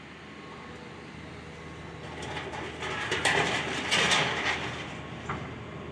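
Excavator's diesel engine running steadily while a building is torn down, with a burst of crunching and clattering debris from about two to five seconds in, loudest around three to four seconds.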